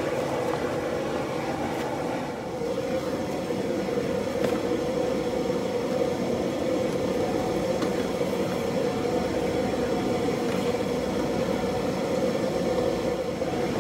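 Blacksmith's forge running with a steady, even rushing noise, with a few faint clicks over it.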